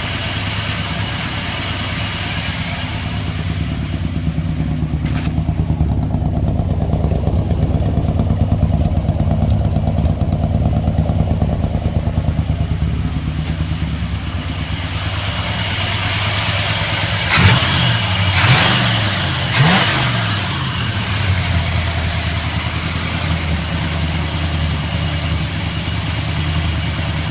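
Vehicle engine running steadily, then revved hard two or three times between about seventeen and twenty seconds in, the pitch shooting up and dropping back quickly with sharp loud bangs at the peaks.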